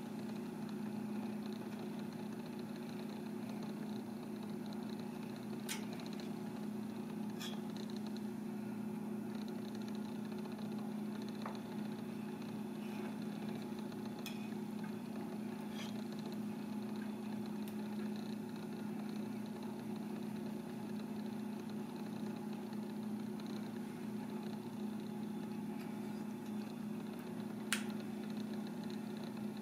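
Steady low machine hum, with a few short, sharp clicks of a kitchen knife against a plastic cutting board as clam meat is sliced.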